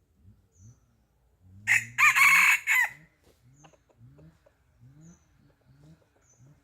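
A rooster crows once, loud and short, starting about a second and a half in. Soft, low, rising clucks repeat about twice a second throughout, typical of hens.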